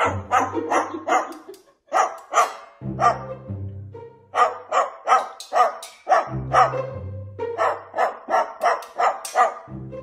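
Dog-like barking in quick, regular yaps, about three a second with a couple of short pauses, over background music with a low bass line.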